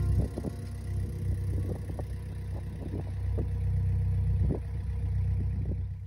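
Narrowboat's diesel engine running steadily under way, a low rumble, with faint steady tones and light knocks over it.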